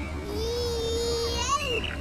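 Recorded eagle call played through the robotic eagle exhibit's speakers: one long held call that bends and drops in pitch near the end.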